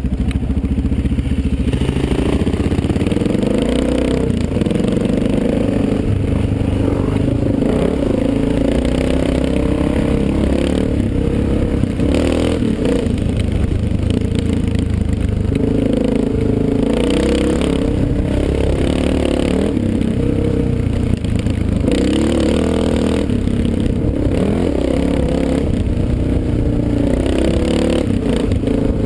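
Dirt bike engine recorded on board, its pitch rising and falling again and again as the throttle opens and closes along a trail.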